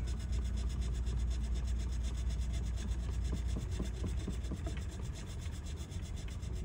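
Foam-tipped swab scrubbing back and forth over an aluminium TV-mainboard heat sink, rubbing off old thermal paste, with a steady low hum underneath.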